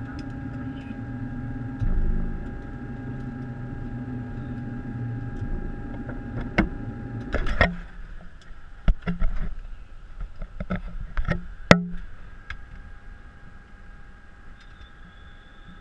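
Boeing 737 cockpit during taxi: a steady hum with a constant tone and a low rumble that fades out about halfway through. Several sharp clicks and knocks come between about six and twelve seconds in.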